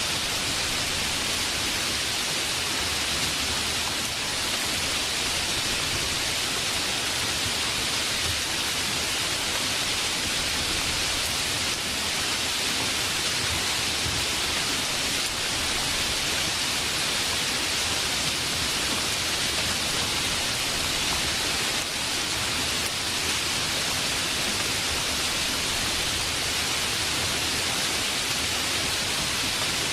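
Steady heavy rain: a dense, even hiss of falling water with no separate drops or thunder standing out.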